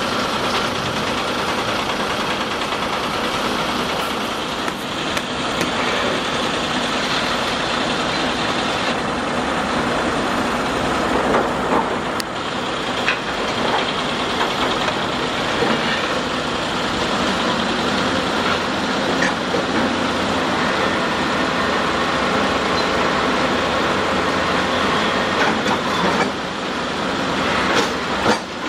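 Heavy construction machinery engine running steadily while a toothed steel pile casing is drilled into the ground, with a few short knocks around the middle and near the end.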